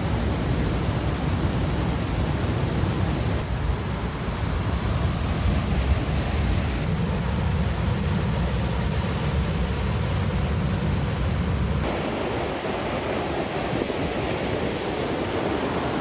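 Rushing water of a rain-swollen river and waterfall: a steady, loud, noisy rush with no distinct tones. Its tone shifts abruptly three times, about 3.5, 7 and 12 seconds in.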